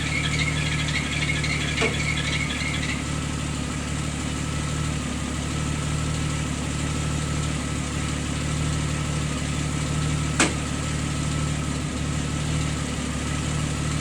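Vehicle engine idling steadily, with a warbling high squeak over the first three seconds that stops, a small click about two seconds in and a sharp click near ten and a half seconds.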